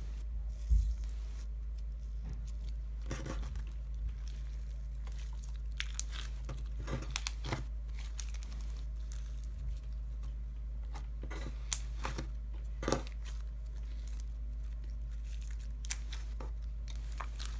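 Clear glue slime filled with cut-up sponge cubes being squeezed, stretched and clapped between the hands, giving scattered crunches, crackles and sharp little pops.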